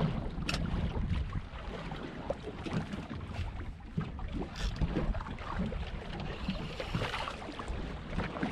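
Wind rumbling on the microphone with sea noise around a small fishing boat, broken by scattered small clicks and knocks.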